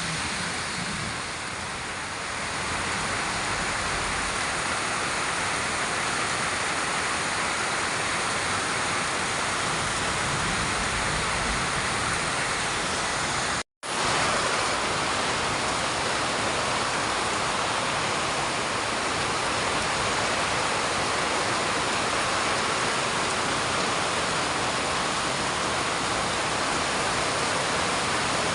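Heavy rain pouring down steadily in a dense, even hiss. The sound drops out for a split second about halfway through.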